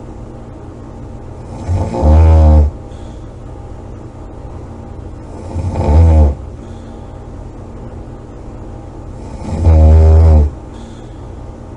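A person snoring loudly: three snores about four seconds apart, each lasting around a second.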